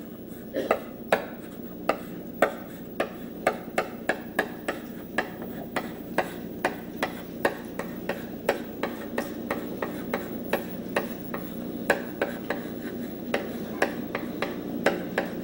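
Chalk tapping and scratching on a blackboard as Japanese characters are written stroke by stroke: dozens of sharp, irregular ticks, about two or three a second, over a steady low hum.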